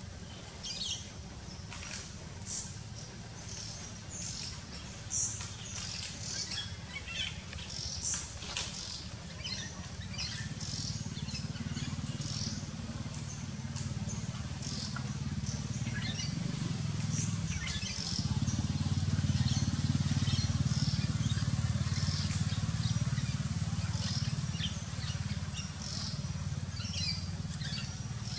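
Birds chirping with many short, high calls, over a low rumble that swells in the second half.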